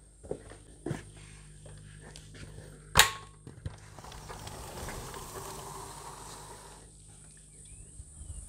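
Footsteps on a tiled floor, then one sharp knock about three seconds in, followed by a few seconds of soft rushing noise.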